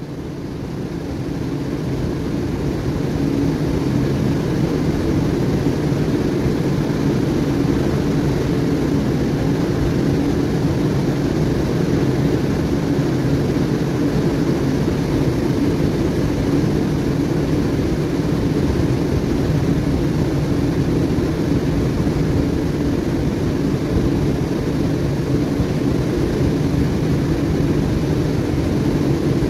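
Steady low drone of tugboat diesel engines working, with a rushing hiss above it. It swells up over the first couple of seconds, then holds level.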